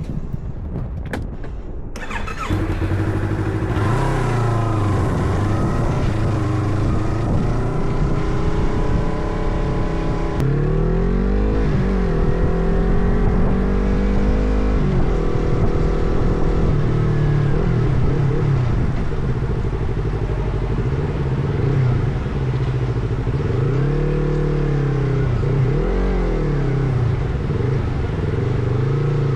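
Motorcycle engine running under way, its note rising and falling as the bike speeds up and slows. It starts about two seconds in, after a few clicks.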